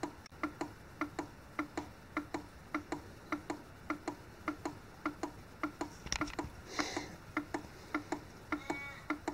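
Steady mechanical ticking from an OI Analytical 9310 online cyanide analyser's mechanism as it runs a cyanide detection: even doubled clicks, about two a second. A brief hiss comes about six to seven seconds in.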